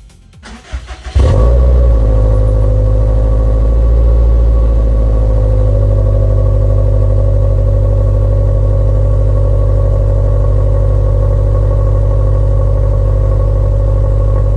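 Subaru STI's turbocharged flat-four boxer engine starts about a second in with a brief flare and then idles steadily and loudly. It exhales through a muffler that has been cut open, emptied of its packing and welded shut to make it louder.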